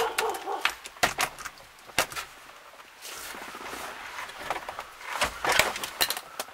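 Irregular clicks and knocks of hand tools and metal parts, with a cluster of sharper knocks about five seconds in, as a steering column is unbolted and lowered under a car's dashboard.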